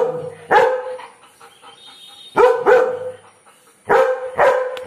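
German Shepherd barking loudly in short pairs, about six or seven deep barks with pauses of a second or so between the pairs.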